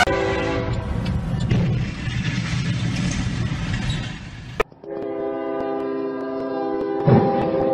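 Freight locomotive air horn blowing a steady chord over loud rumbling and crashing noise as the train plows through a semi-trailer at a crossing. It cuts off abruptly about four and a half seconds in, and another train horn then blows steadily, with a short thump about seven seconds in.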